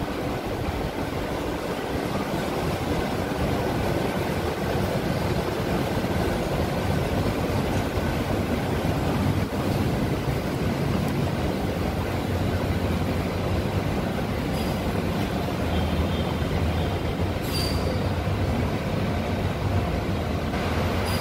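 Steady city traffic rumble echoing along a narrow alley, with a low engine hum from buses on the street ahead growing stronger in the second half. A short high squeak comes near the end.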